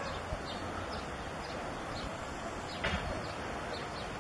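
Birds chirping in short, high notes several times a second over a steady outdoor hiss.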